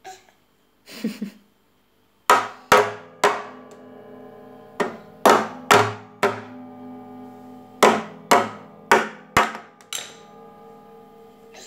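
A guitar struck again and again with a small hammer: about a dozen sharp knocks in uneven clusters, its strings ringing on between the blows.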